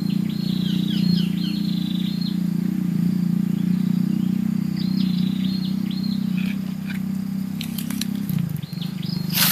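A bird chirping in two runs of short repeated notes, the first near the start and the second around the middle, over a loud steady low hum that stops about eight seconds in.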